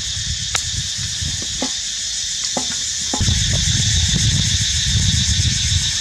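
Water poured in a thin stream into a metal cooking pot, a low rumbling splash that starts about three seconds in, over a steady high insect drone and a few light clicks in the first half.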